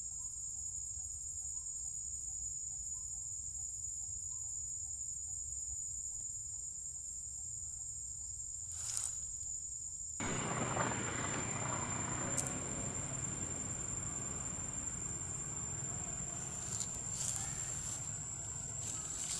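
A steady, high-pitched insect drone from the surrounding forest, with a few short clicks; about ten seconds in, a louder, even hiss sets in beneath it.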